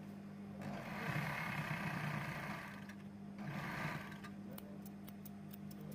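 Peco designing sewing machine running in two bursts, about two seconds and then half a second, over a steady motor hum.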